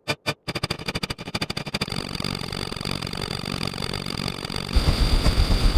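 A short sound effect repeated about five times a second, then from about half a second in coming faster and faster until the repeats blur into a continuous buzz with a steady high whine. Near the end a louder low, rapid fluttering sets in, like an engine.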